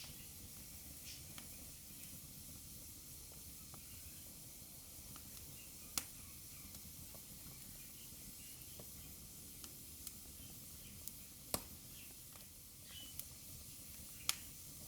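Wood fire burning in a fireplace: a faint steady hiss with scattered sharp crackling pops, three of them much louder than the rest.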